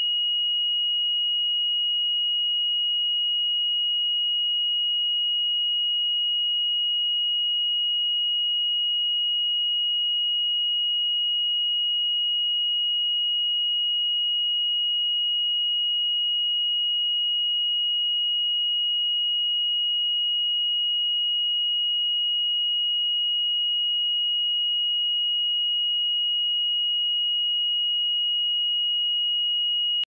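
Steady 2891 Hz sine-wave test tone: a single pure, high-pitched tone held at one pitch and level throughout.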